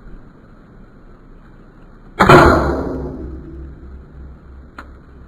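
Stinger P311 airsoft pistol fired once about two seconds in: a single sharp crack that rings out over about a second, followed by a faint click near the end.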